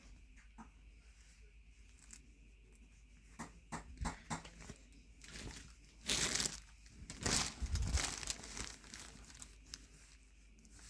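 A kilt being handled, its fabric rustling and crinkling as a phone is pushed into its pocket. There are faint scattered clicks at first, then louder rustling bursts past the middle.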